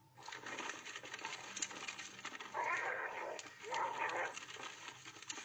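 A dog vocalizing in two short bursts, about two and a half and four seconds in, as it bites at the wheel of a rolling plastic wheelie bin. The bin's wheels rattle and click over the rough pavement throughout.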